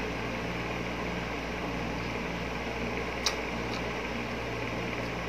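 Steady low hum and hiss of room background noise while a piece of ripe mango is chewed, with two faint mouth clicks a little after three seconds in.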